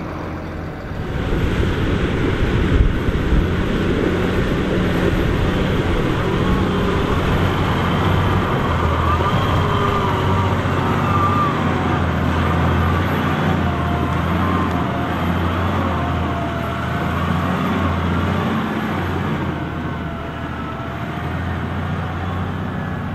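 Case IH Optum 300 tractor's six-cylinder diesel engine running hard under heavy load as it drags a loaded silage trailer through deep mud. Steady low drone, louder from about a second in.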